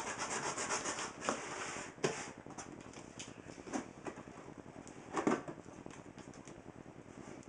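Fingers scratching and picking at packing tape and plastic wrap on a cardboard box. It rustles and scrapes for the first couple of seconds, then gives a few sharp scrapes and taps.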